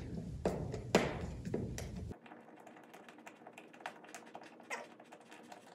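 Hand work on a plastic drywall anchor at the wall: a few sharp clicks and knocks in the first two seconds, then a quick run of faint ticking and scraping.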